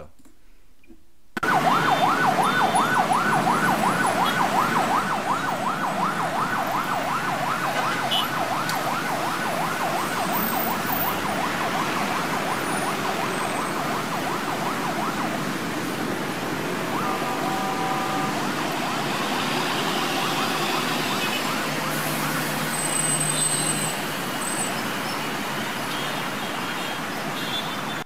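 Ambulance siren in a fast yelp, sweeping rapidly up and down over and over, above the steady noise of heavy road traffic. The siren fades out about halfway through, leaving the traffic noise.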